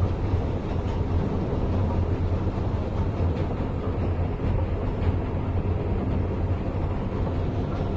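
Mustard oil expeller (screw press) running steadily as it presses seed, a continuous machine noise with a strong low hum.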